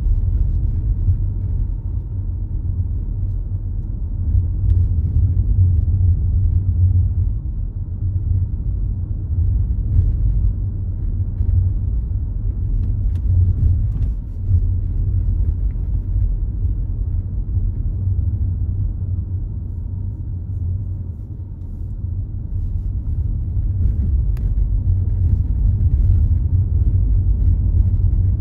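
Steady low rumble of a car driving, heard from inside the cabin: road and engine noise that swells and eases a little as it goes.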